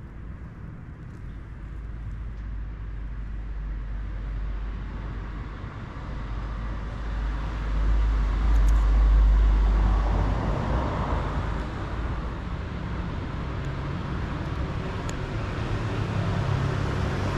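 Road traffic going by: a steady rumble in which a passing vehicle swells up and fades, loudest about nine seconds in, with traffic building again near the end.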